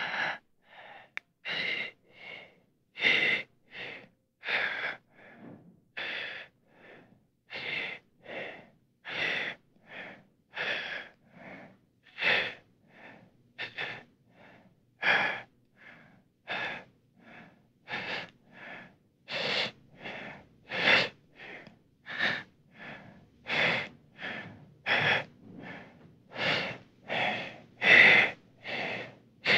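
A person's labored breathing, staged as a dying person's last breaths for a horror sound effect. The breaths come in short separate pulls, about one to two a second, some loud and some faint.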